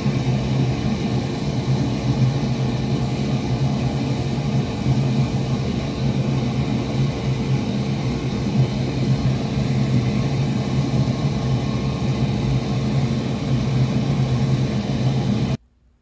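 A steady mechanical hum, like a fan or motor running, with a strong low drone. It cuts off abruptly near the end.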